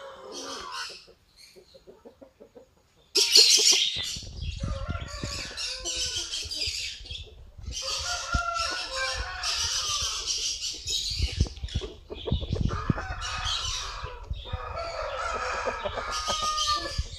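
Chickens clucking and calling, a rooster among them, in several long spells from about three seconds in, with a low rumble underneath.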